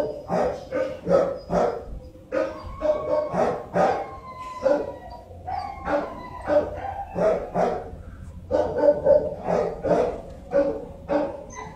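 Dog barking over and over, about two to three barks a second, with a brief pause midway.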